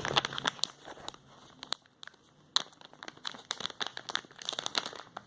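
Packaging being handled and opened, with irregular crinkling and a run of small clicks and crackles.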